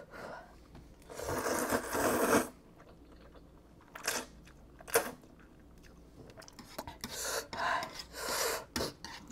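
Eating instant ramen noodles with chopsticks: a long noisy slurp about a second in, then quiet chewing with a couple of sharp clicks, and more short slurping and mouth sounds near the end.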